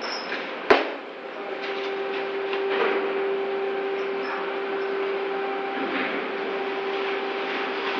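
Steady hum of a crane hoist lifting a railcar in slings, starting about a second and a half in. It is preceded by a single sharp knock, with a few soft knocks of handling gear over it.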